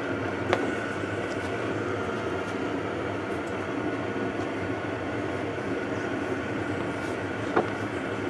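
Steady roar of a gas burner firing a raku kiln, with two sharp knocks, one about half a second in and one near the end.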